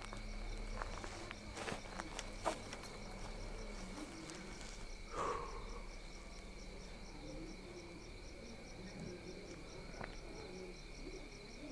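Crickets chirping in the night: a faint steady high trill with an evenly pulsed chirp over it. A few faint clicks and knocks come through now and then.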